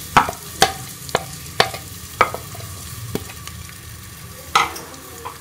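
Chopped onions frying in hot ghee in a metal pot, a steady sizzle under sharp clicks of a spoon striking the pot as they are stirred: about two a second at first, then fewer.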